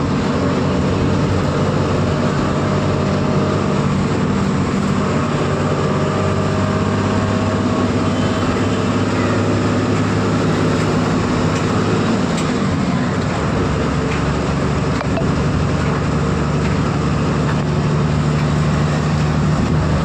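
Bus engine and road noise heard from inside the cabin while cruising on a highway, a steady drone. The engine note shifts about twelve seconds in.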